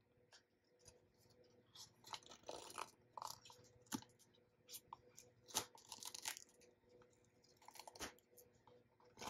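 Woven nylon Apple Watch band being pulled out of its cardboard and paper packaging tray: scattered soft scratchy rustles and scrapes with a few small clicks of the card.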